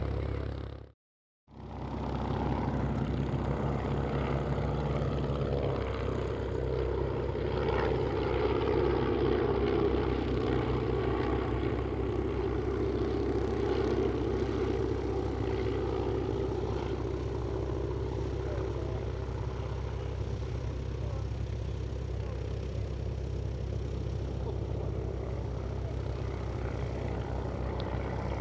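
Klemm 35D light propeller plane's engine and propeller droning steadily, growing louder about eight to fourteen seconds in and then easing off. The sound cuts out completely for about half a second near the start.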